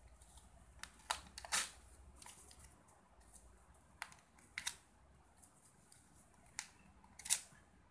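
Torn pieces of a paper sheet rustling and crinkling as they are handled and folded together in the hands: faint, with a handful of short, sharp crackles spread over the seconds, the loudest a little past one second and again near the end.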